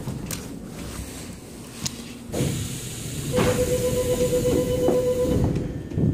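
Seoul Subway Line 9 train noise in a tunnel: a loud rushing hiss rises about two seconds in, with a steady whining tone held through the middle, and eases off near the end.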